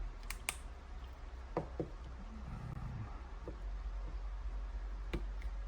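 Handling of a Spyder paintball marker's electronic trigger frame as its battery is plugged back in: about six light clicks and knocks at uneven intervals, over a low steady hum.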